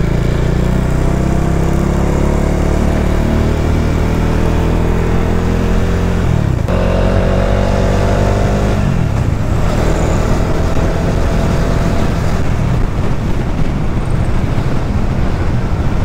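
Bajaj Dominar 400's single-cylinder engine pulling under acceleration, its note rising steadily and dropping at gear changes about six and a half seconds in and again near nine seconds. After that it settles under an even rush of wind noise.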